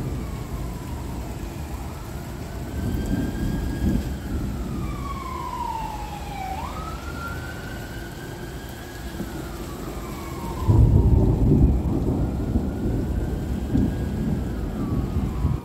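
Thunder rumbling steadily over gentle rain, with a faint emergency-vehicle siren wailing slowly up and down over it. A louder roll of thunder comes in about eleven seconds in.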